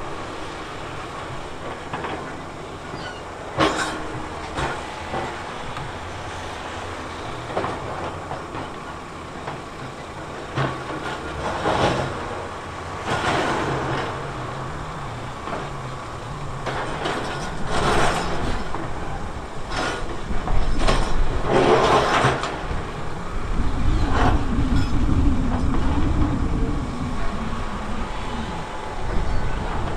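Heavy earthmoving machine's diesel engine running, with a series of sharp clanks and knocks of metal and rock. The engine works harder, with a heavier low rumble, in the last part.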